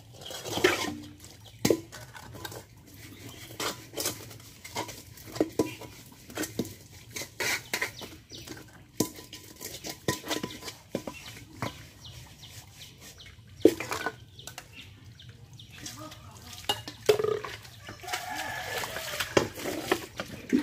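Metal pots, a dark wok and steel plates clattering and scraping as they are scrubbed and rinsed by hand, with many short knocks and clinks and a brief ring of metal about halfway through. Water is poured near the end.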